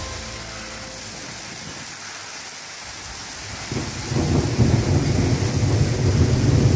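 Steady rain hiss, then a long low rumble of thunder that starts suddenly about three and a half seconds in and stays loud.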